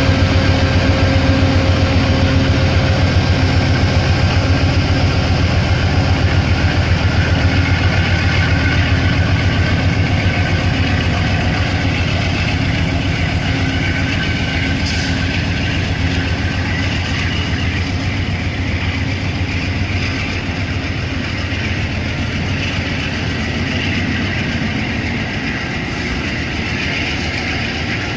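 Amtrak GE P42DC diesel locomotive pulling a passenger train away. Its engine drone is loud at first and fades as it moves off, then the passenger coaches roll past with steady wheel-on-rail noise.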